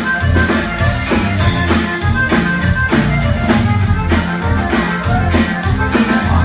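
Live norteño-style band playing: accordion melody over bajo sexto, electric bass and drums, with a steady even beat.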